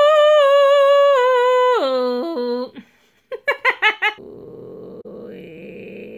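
A woman's throat-singing attempt: a long, loud, high note that sags a little, then drops abruptly to a much lower note near two seconds in. A short laugh follows after about three seconds. Then comes a quieter, rough, low vocal drone.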